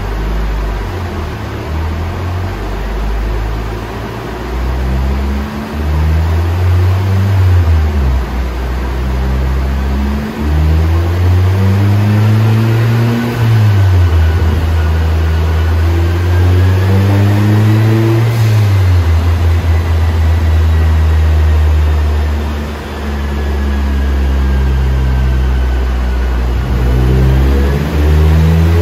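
Turbocharged Honda K20Z3 four-cylinder of a 2008 Civic Si running on a chassis dyno through its 3-inch cat-back exhaust. It revs up in steps, the pitch climbing and dropping back several times, with a faint rising whine above the engine note.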